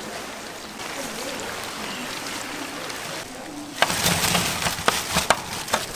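Chicken deep-frying in oil in a cast-iron cauldron, sizzling steadily, with several sharp knocks and a clatter from about four seconds in.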